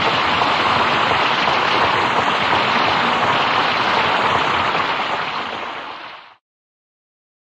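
Audience applauding at the end of a song. The clapping holds steady, then fades and cuts off about six seconds in.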